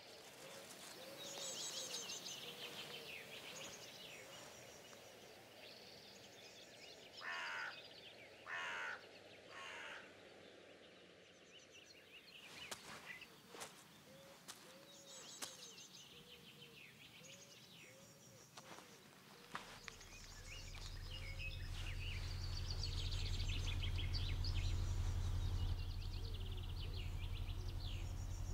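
Outdoor ambience of small birds chirping, with three harsh crow caws about seven to ten seconds in and a few sharp clicks after them. From about twenty seconds in, a low steady hum swells up and holds.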